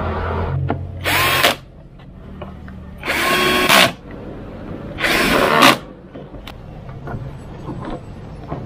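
Ingco cordless drill driving the fasteners that hold a fog lamp housing into the bumper, run in three short bursts about two seconds apart, each starting with a quick rise in pitch as the motor spins up.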